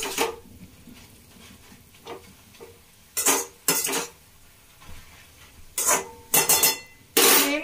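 A metal spatula scrapes and clinks against a metal kadhai while stirring leafy greens that are being sautéed. The strokes come in a few short, irregular bunches, and the last one, near the end, is the longest.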